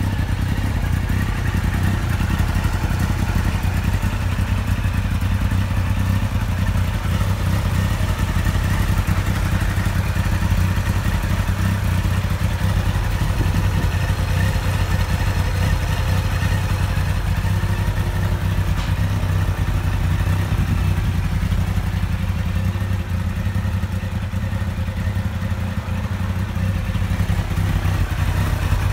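Yamaha XJR1300's air-cooled, carburetted inline-four engine idling steadily through aftermarket exhausts.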